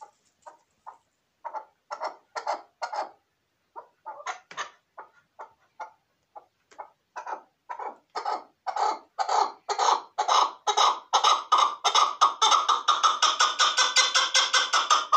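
Caged chukar partridge calling: a series of clucking notes that starts sparse, then speeds up and grows louder into a rapid, steady run of about four calls a second near the end.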